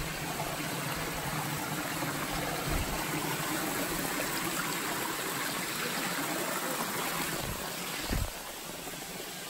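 Creek water rushing steadily, as at a small waterfall. A brief thump comes about eight seconds in, and the rushing is quieter after it.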